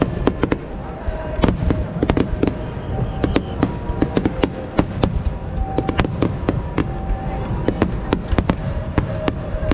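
Fireworks bursting in rapid succession: many sharp cracks and pops, several a second, over a continuous low rumble of booms.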